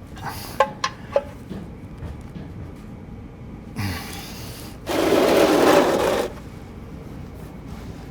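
Ratchet wrench with an 11/16 socket: a few sharp metallic clicks in the first second and a half, then about a second and a half of fast ratcheting, as a drain plug is loosened for the oil change.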